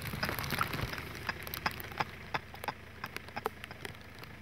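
Rain falling, heard as irregular sharp taps of drops close to the microphone over a faint steady hiss; the taps thin out near the end.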